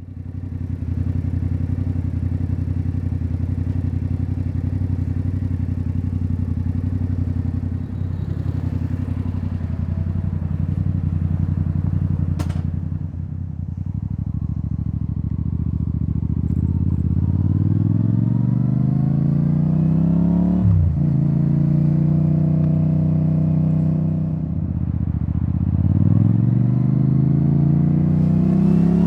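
Yamaha XSR700's CP2 parallel-twin engine through a debaffled Akrapovic titanium exhaust, first at a steady low pitch, then rising as it pulls up through the revs, with a sudden drop in pitch from a gear change about two-thirds through and again near the end. A single sharp click about twelve seconds in.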